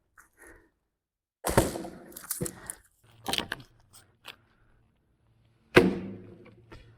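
Dead pine wood cracking and breaking at a snap cut: four sharp cracks and knocks, the loudest near the end, each dying away over up to a second.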